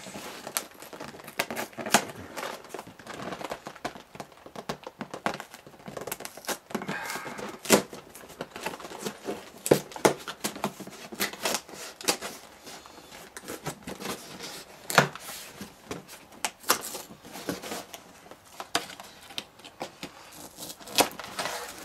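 Cardboard box being opened by hand: irregular sharp clicks, scrapes and crinkling as the end flap is worked loose and pulled open.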